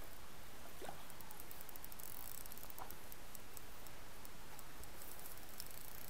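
Spinning reel being wound in against a hooked pike: faint, irregular ticking over a steady hiss, with two short rising squeaks about one and three seconds in.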